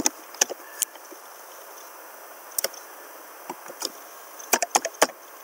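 Computer keyboard keys being typed: a dozen or so sharp, separate clicks in uneven little clusters as a password is entered.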